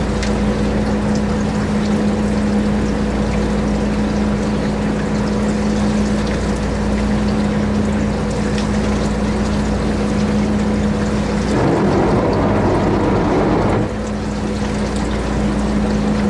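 Boat engine running with a steady drone over a wash of water noise. A louder rush of water comes for about two seconds near twelve seconds in.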